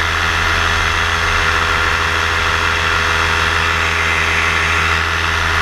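Steady hum of a model aircraft's motor and propeller picked up by its onboard camera, with rushing air, holding an even pitch in cruise flight.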